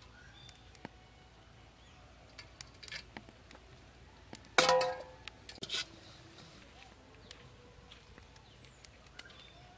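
Scattered small clicks and cracks from crab shell being handled, with one loud clank of a stainless steel plate about halfway through that rings briefly.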